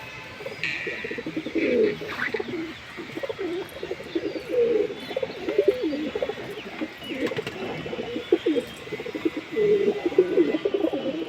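Teddy pigeons, a fancy domestic pigeon breed, cooing over and over in low, wavering calls, with a few higher chirps near the start.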